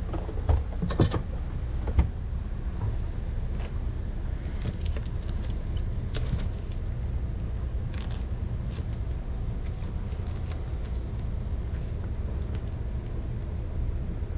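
Scattered small clicks and rattles of plastic wiring connectors and trim being handled and unplugged above a car headliner, a few sharper snaps in the first two seconds, over a steady low rumble.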